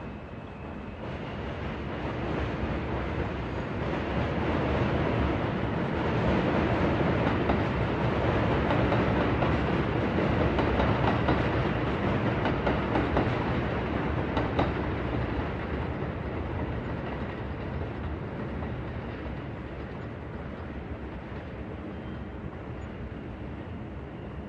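A train passing through a city at night: its noise builds over several seconds, peaks midway, then fades away.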